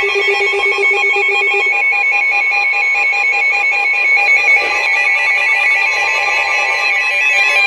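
Emergency Alert System attention signal: a loud, steady electronic alert tone with no break, made of several held pitches with a fast warble in the upper one.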